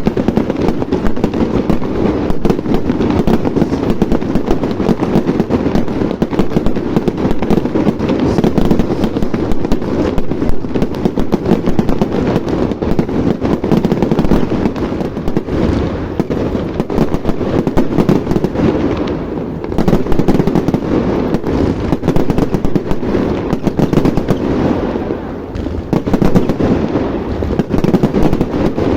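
Fireworks display: a dense, continuous barrage of bangs and crackling, slackening briefly twice.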